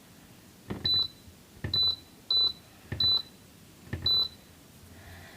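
Touch control panel of a Raga induction cooktop beeping five times, a short high beep after each soft tap of a finger on the panel, as the cooking modes are stepped through.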